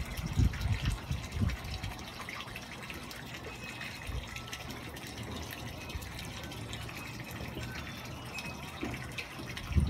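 Water trickling and dripping in a ZipGrow tower aquaponics setup, a steady wash with small drip ticks, fed by soft fish-tank tubing at the tower's inlet. A few low bumps on the microphone come in the first second or so.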